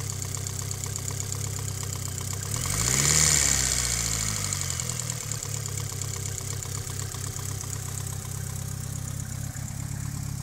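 Mitsubishi Lancer Evolution VIII's turbocharged 4G63 inline-four idling with a fast, even ticking, which the owner takes for lifter tick. About three seconds in, the revs rise briefly and settle back to idle.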